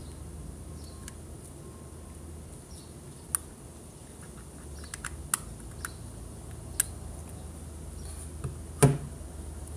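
Small plastic clicks and handling noises as a battery is fitted into a Panasonic Lumix DMC-LX10 compact camera's battery compartment. Near the end there is a single louder knock as the camera is set down on the table.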